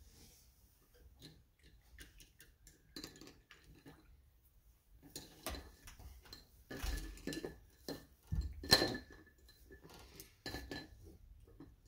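A paintbrush clinking and tapping against a hard paint cup as it is dipped, in scattered light knocks with a short ring. The loudest clink comes about nine seconds in.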